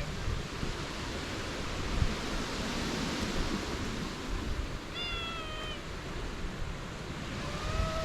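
Stray cat meowing: one short, slightly falling meow about five seconds in, and another starting near the end, over a steady background hiss.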